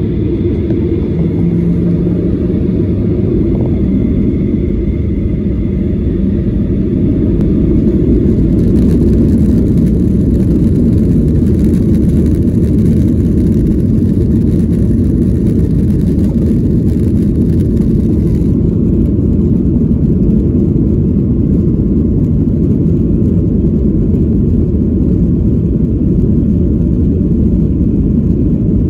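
Boeing 737-800's CFM56 turbofan engines and wheels heard from inside the cabin during the takeoff roll: a loud, steady deep rumble that grows louder about eight seconds in, with a higher hiss added for roughly ten seconds after that.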